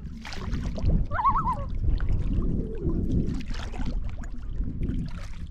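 Common loons giving their wavering tremolo call about a second in, agitated by a paddler close by. Underneath are splashing paddle strokes in choppy water and a low rumble of wind on the microphone.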